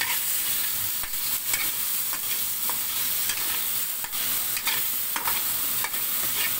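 Diced chicken breast and onion sizzling in a little olive oil in a wok, with a steady hiss. A spatula stirs the pieces, scraping and knocking against the pan at irregular intervals.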